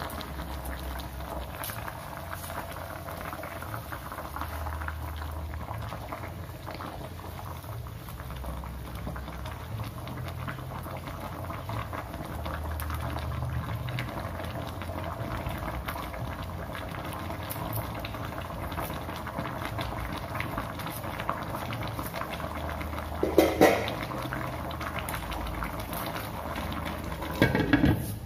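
Chicken simmering and bubbling steadily in a turmeric spice broth in a wok, being braised in the spices before frying, with a spatula moving through it. Two sharp clanks near the end, the second as a glass lid is set on the wok.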